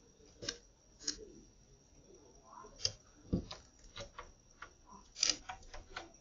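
Irregular sharp clicks and taps, a few of them louder, of doves pecking scattered seeds on a hard ledge.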